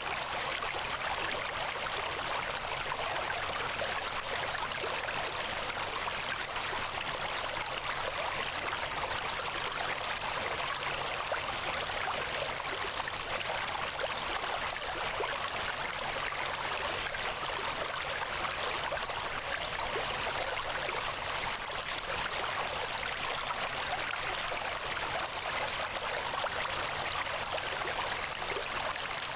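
Steady rush of flowing water, like a stream, even and unchanging.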